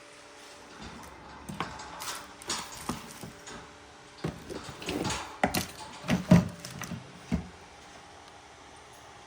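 Irregular clicks, knocks and short rustles of small objects and packaging being handled, from about a second and a half in until about seven and a half seconds.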